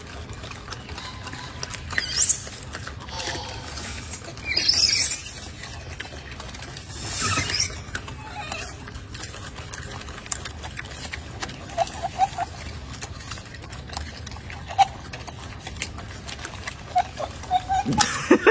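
Golden snub-nosed monkeys calling: three high-pitched rising calls in the first half, then a few short, faint chirps.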